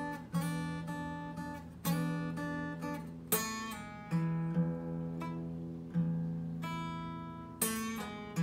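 Steel-string acoustic guitar fingerpicked in a delta-blues intro in E: a low E bass note struck again and again under single treble notes. About seven plucks, each left to ring into the next.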